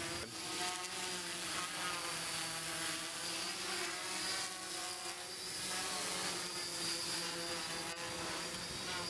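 Electric motors and propellers of a Xugong 10 FPV multirotor in flight: a steady whirring buzz whose pitch wavers up and down as the motors speed up and slow down.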